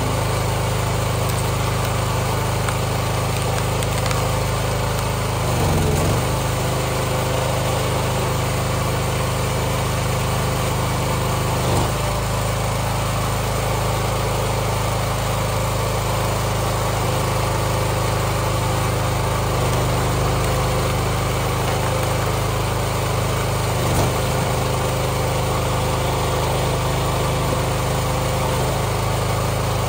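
Small gas engine of a hydraulic log splitter running steadily. Its pitch dips briefly three times as the engine takes load while the wedge works through rounds of wood.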